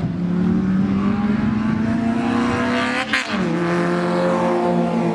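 Two hatchback race cars making a drag run, their engines at full throttle. About three seconds in, the engine note drops sharply as a car passes by.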